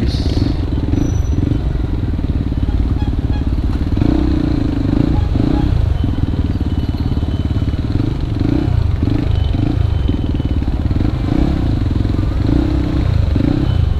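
A Yamaha WR155R's single-cylinder engine idling steadily in stalled traffic, without revving.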